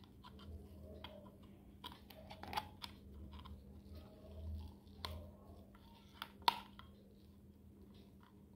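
Lime being squeezed by hand over a glass: quiet handling noises with scattered sharp clicks and taps, the loudest about six and a half seconds in, over a faint steady hum.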